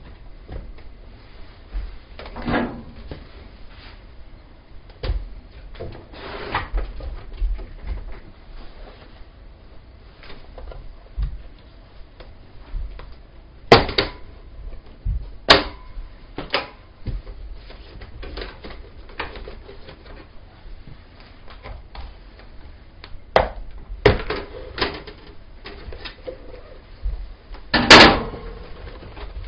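Scattered knocks, clicks and scrapes of fitting a window seal device around a window air conditioner. Two sharp knocks come about halfway through, and the loudest clatter comes near the end.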